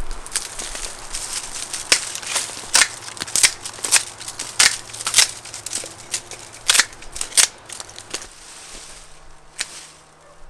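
Dry flower stalks being cut up and snapped: a run of sharp snaps and cracks over the first eight seconds, after which it goes quieter.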